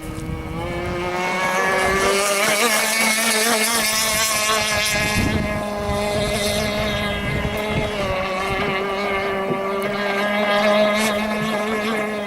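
Gas-powered radio-controlled model boat engine running at speed on the water, a high buzzing whine that climbs in pitch over the first two seconds and then holds fairly steady, with a second steady lower engine tone underneath.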